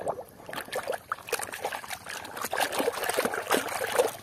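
Water trickling and splashing in an uneven run of small splashes as a muddy toy car is washed.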